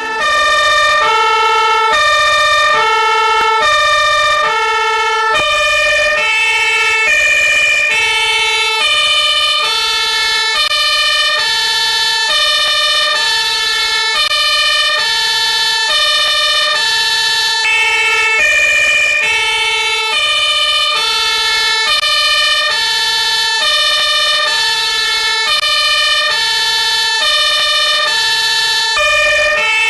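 German fire-engine two-tone siren (Martinshorn, "tatü-tata") sounding continuously, switching evenly between a lower and a higher pitch about twice a second.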